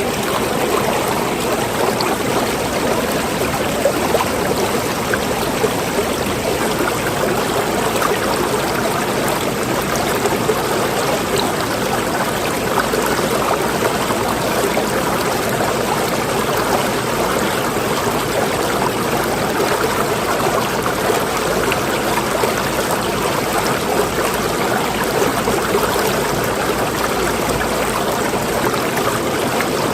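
Running water flowing steadily, an even rush with a trickling edge that does not change throughout.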